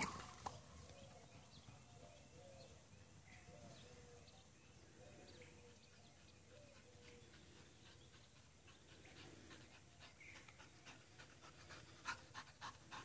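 Near silence with faint short chirps. About a second before the end, a black Labrador's quick, rhythmic panting comes in as she runs back close after fetching.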